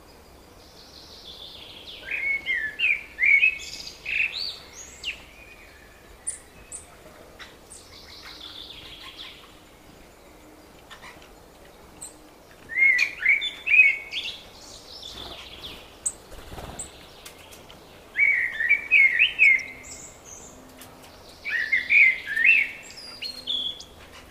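Songbirds singing: a warbled song phrase about two seconds long, repeated four or five times, with fainter calls in between.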